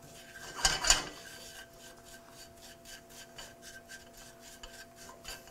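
A spatula scraping and stirring buttered panko breadcrumbs around a small nonstick frying pan as they toast, in quick repeated strokes. The loudest scrape comes about a second in.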